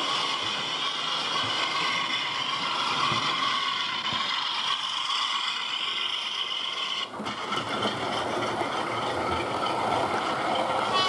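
Model Class 47 diesel locomotive and its train of parcels vans running past on the track, giving a steady diesel engine drone with the rumble of wheels on the rails. The sound drops out briefly about seven seconds in.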